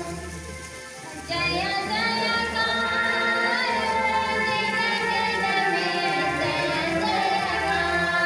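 Music with a high singing voice. It is softer for about the first second, then the singing comes in louder and carries on steadily.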